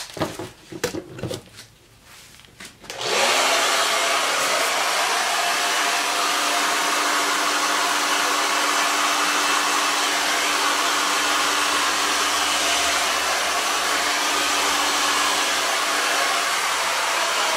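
Handheld hair dryer switched on about three seconds in, spinning up to a steady hum over a rush of air as it blows wet acrylic paint across a table top in a Dutch pour. It runs evenly until it is switched off right at the end. A few light knocks of handling come before it starts.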